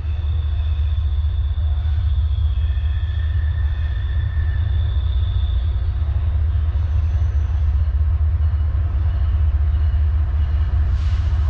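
CSX manifest freight train rolling past: a loud, steady low rumble, with thin high whining tones over it in the first half and a brief hiss near the end.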